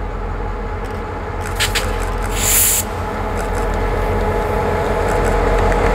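A pair of South Shore Freight EMD diesel-electric locomotives, each with a 16-cylinder two-stroke 645 engine, pulling a freight train. The engines run with a steady drone that slowly grows louder as the train approaches. A short hiss comes about two and a half seconds in.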